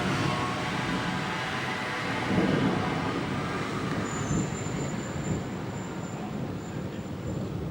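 Thunder rumbling low and continuously, swelling loudest about two and a half seconds in, from a nearby lightning strike.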